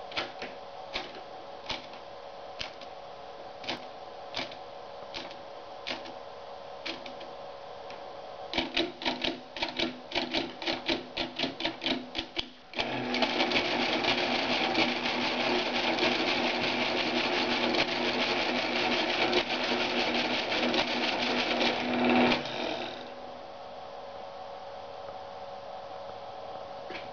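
Rheinmetall SAL electromechanical desk calculator. Single key clicks come about once a second, then a fast run of clicks about eight seconds in. Then the motor-driven mechanism clatters continuously for about ten seconds and stops abruptly.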